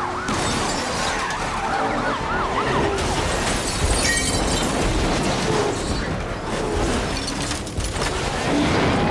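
Movie car-chase sound mix: police sirens wailing over vehicle noise, with a crash about four seconds in.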